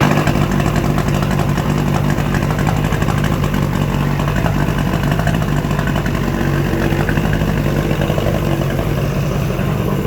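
1972 Mercury 65 hp inline three-cylinder two-stroke outboard with two carburettors, running steadily at idle with no change in speed. It is running well, with its ignition repaired and carburettors tuned.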